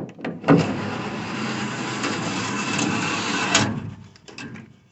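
Electric target carrier of a shooting range running along its overhead rail for about three seconds, bringing the paper target back to the booth; it starts and stops abruptly. A few light clicks and knocks come just before and after it.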